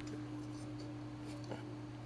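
Faint handling noise of a rubber scooter tire being worked by hand, with a soft knock about one and a half seconds in, over a steady low hum.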